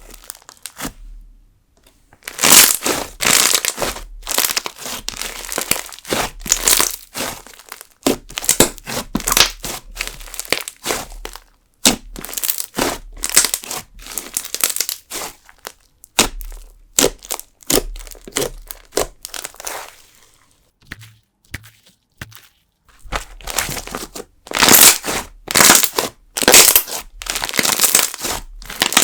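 Jelly slime mixed with sugar beads being stretched, folded and squeezed by hand into a fluffy, air-filled texture, giving repeated bursts of dense crackling and small pops. The sound pauses briefly near the start and again about twenty seconds in.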